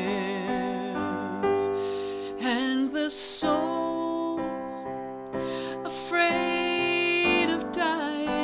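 A woman singing a slow ballad, holding long notes with vibrato, over piano accompaniment.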